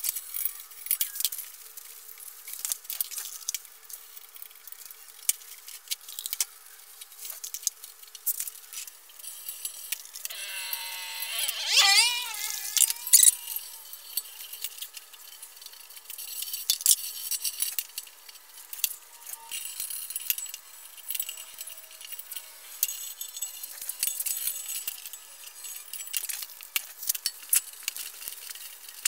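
Scattered clicks, clinks and light scrapes of gloved hands working over a bare Honda CRF300L steel motorcycle frame and wiping it down with a rag. A wavering squeak, sliding up and down in pitch, comes about halfway through and is the loudest sound.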